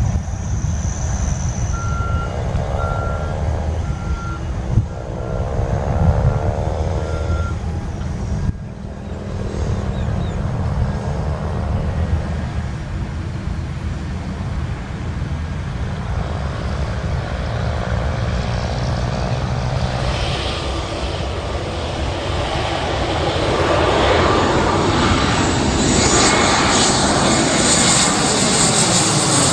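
Airliner engines running at the airport, the roar building over the last third as an aircraft comes closer, with sliding whine tones near the end. A few seconds in, a ground vehicle's reversing alarm beeps about six times.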